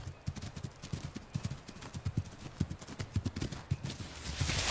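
Amur tiger's paws thudding on snow at a run, in quick, rhythmic, low footfalls about three or four a second. Near the end a broad rush of noise rises.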